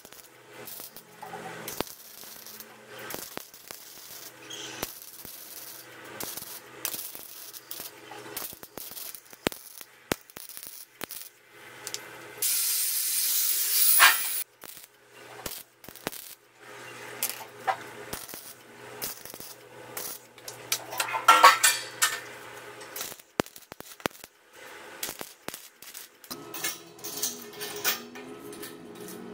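Steel tubes and metal parts clinking, tapping and scraping as they are handled and fitted to a sheet-steel grill box. There is a loud hiss of about two seconds near the middle, a burst of rapid clinks a little later, and a faint steady hum near the end.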